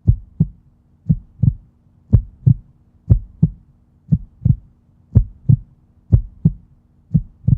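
A heartbeat-like rhythm of paired low thumps, a double beat about once a second, over a faint steady low hum.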